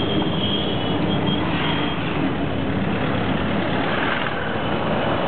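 Auto-rickshaw engine running steadily at speed, heard from inside the open cab along with road and wind noise.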